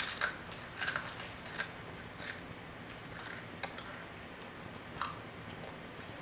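A Pringles potato chip being bitten and chewed: a string of short, crisp, irregular crunches, several in the first two seconds and a few more spaced out after.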